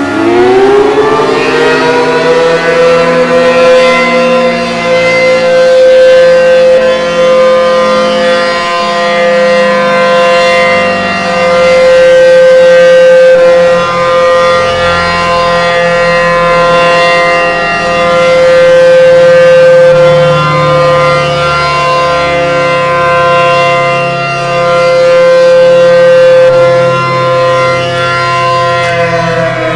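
Tornado warning siren sounding a steady tone on test: it winds up to pitch just after the start, holds there with its loudness swelling and fading about every seven seconds, and begins to wind down at the very end.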